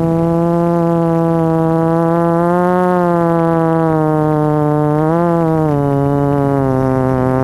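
Motor and propeller of an RC model aircraft heard from the onboard camera: a loud, steady buzzing drone that rises a little in pitch, lifts briefly again about five seconds in, then drops to a lower pitch as the throttle eases back.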